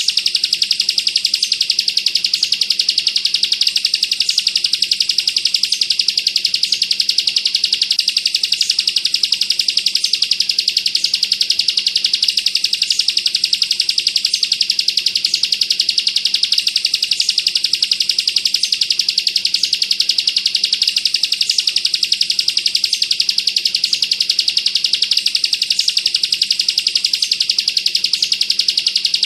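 Bar-winged prinia (ciblek kristal) singing a dense, rapid, high-pitched trill without a break: the continuous 'bren' chatter prized by songbird keepers, with a higher accent note repeated a little more than once a second.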